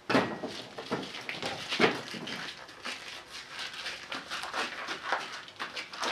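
A fresh disposable glove being pulled and worked onto a hand, with a run of irregular rubbery rustles, crinkles and small snaps.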